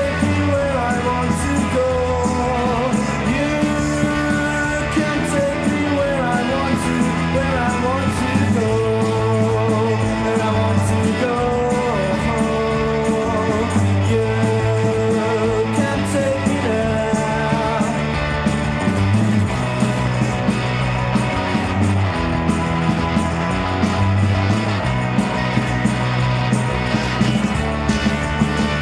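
Rock band demo recording playing: a male lead vocal singing over guitars, bass guitar and drums.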